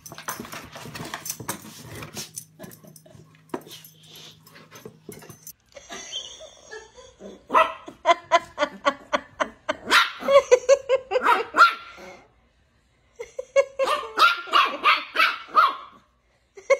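A puppy barking in quick, high-pitched yips, in two runs of several seconds each with a short pause between. Before them come a few seconds of light scratching and rustling.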